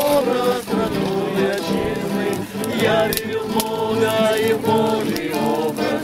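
Group singing a song to two strummed acoustic guitars.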